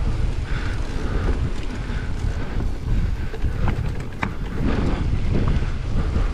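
Wind buffeting the microphone with a steady rumble as a mountain bike descends a wet trail. Occasional sharp knocks and rattles of the bike over the ground come through, a few of them clustered around the middle.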